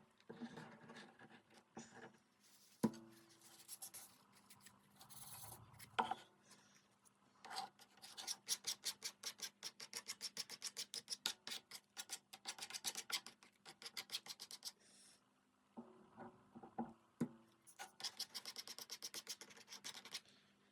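Fast, even back-and-forth scraping strokes on wood from a hand tool working a marquetry piece, about six a second, in two long runs, with scattered knocks and taps before and between them.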